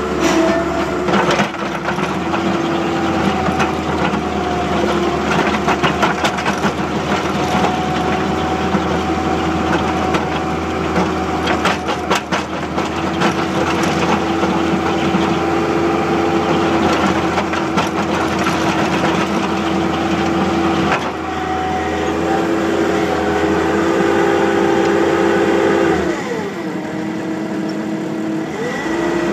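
Bobcat skid-steer with an asphalt grinder attachment, its engine running steadily, with a few sharp knocks and rattles in the first half. About 26 seconds in the engine note falls, then climbs again near the end.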